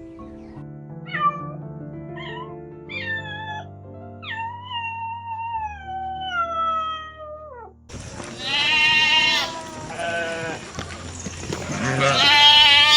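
Soft piano music with several short animal calls that fall in pitch, then one long, slowly falling call. About eight seconds in, louder calls take over: one long call, some shorter ones, and the loudest call near the end.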